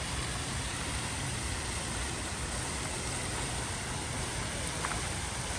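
Water cascading over a spherical fountain and splashing into its basin: a steady rushing hiss, with a low rumble underneath.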